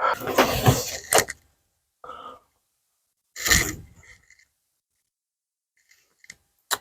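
Short bursts of metal scraping and clinking as a tool winds the last threads of a rusted, broken bolt out of its captive nut, with a few sharp clicks near the end.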